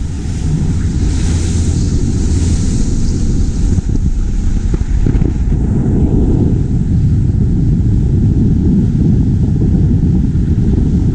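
Sea Pro center console boat running at speed: wind buffeting the microphone over the rush of water along the hull and the engine, a loud, steady noise mostly low in pitch, with extra hiss in the first few seconds.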